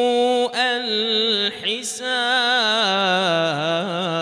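A man reciting the Quran unaccompanied in the melodic tajweed style, holding long ornamented notes whose pitch wavers. The line breaks briefly about half a second in and again around one and a half seconds with a hissing consonant, then resumes and glides downward near the end.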